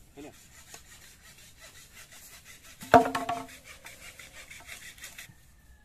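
Green bamboo poles rasping and scraping in quick strokes over dry leaf litter, with one loud hollow knock about three seconds in as a pole lands on the pile and rings briefly.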